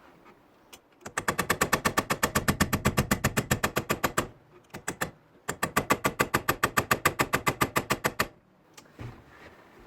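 Rapid hammering on a steel pin punch, about eight sharp metal strikes a second, in two runs of about three seconds with a short pause between, driving at the stuck pin of a 1965 Ford Thunderbird's shifter lever.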